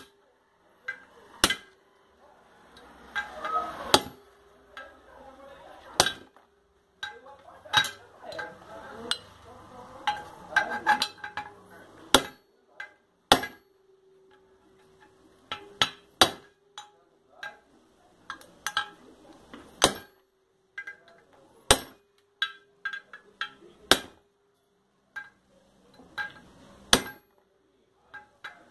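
Hammer blows driving a ball bearing into an aluminium motorcycle engine crankcase: sharp metallic strikes with a short ring, coming irregularly a second or two apart, with lighter taps between. The bearing is being seated by striking its outer edge, never the middle or the balls.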